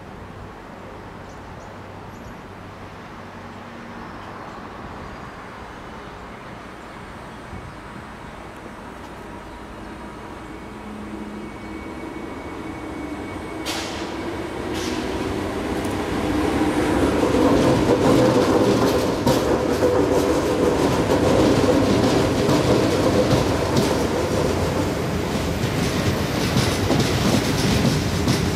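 Three coupled NS ICMm 'Koploper' electric multiple units pulling out and running past close by. The rumble builds from about halfway through, with sharp clicks of the wheels over the track and a thin steady whine above it.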